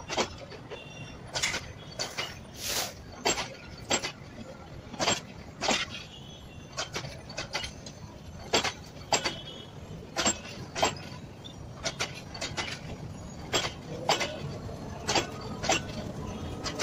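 Passenger coaches of an intercity train rolling slowly past, their wheels clacking over the rail joints in an uneven run of sharp knocks, one or two a second, over a low rumble.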